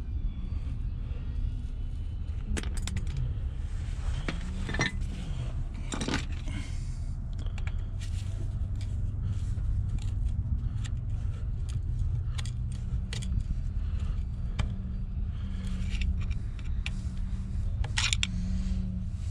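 Metal tools and parts clinking and scraping in irregular short knocks during hand work on a hydraulic cylinder, over a steady low machine hum.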